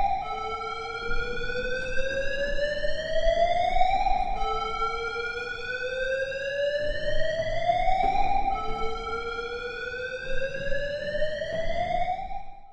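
Warning alarm siren: a slow rising whoop that climbs for about four seconds, drops back and climbs again, three times over. It cuts off suddenly at the end.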